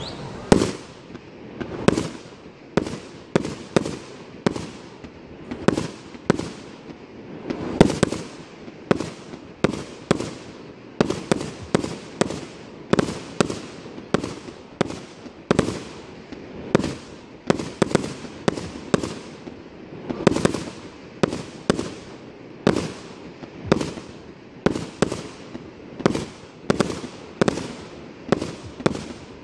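A multi-shot fireworks cake firing shot after shot. Sharp reports come more than once a second, each followed by a short ringing smear.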